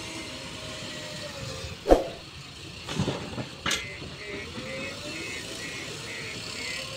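JCB 3DX backhoe loader's diesel engine running under load while its front bucket lifts and tips soil and stones into a tractor trailer. A sharp knock about two seconds in, then two more about a second later.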